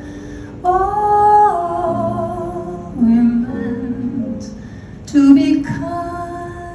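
A woman sings a slow ballad over instrumental accompaniment, holding long notes with vibrato.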